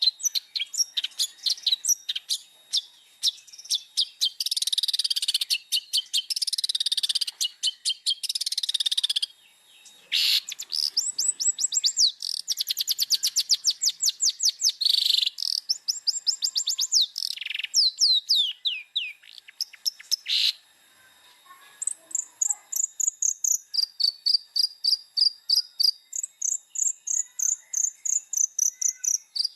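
Long-tailed shrike (cendet) in full, vigorous song (gacor): a loud, varied run of harsh chattering, fast trains of short notes and falling whistled sweeps. Near the end come series of sharp, rapidly repeated notes that jump between a higher and a lower pitch.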